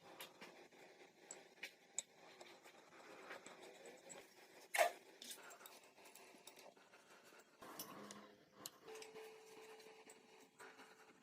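Quiet handling noises of work on the jack: scattered light clicks and taps, with one sharper, louder click about five seconds in. A faint steady hum begins near the end.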